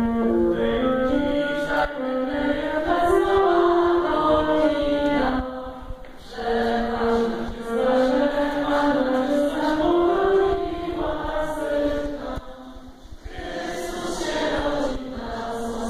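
A Christmas carol sung by a group, a slow melody in two long phrases with short breaks about 6 and 13 seconds in.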